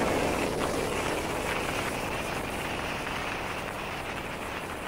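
Mercury outboard engine running at high revs with wind and water noise, heard from the helm of the boat under way. The sound eases slowly.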